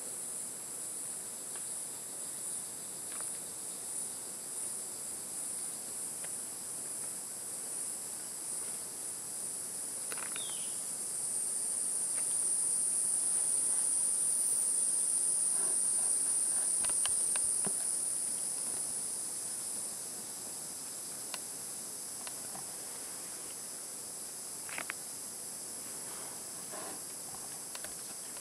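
Chorus of tropical forest insects: a steady high-pitched buzz that pulses evenly at first. About eleven seconds in, one louder, higher drone swells up and fades out again around twenty seconds. A few faint clicks and a short rising chirp sound over it.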